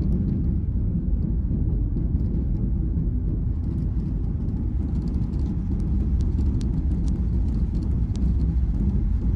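Steady low rumble of engine and airflow noise inside the economy cabin of a Boeing 737 MAX 8 airliner, with a few faint ticks in the second half.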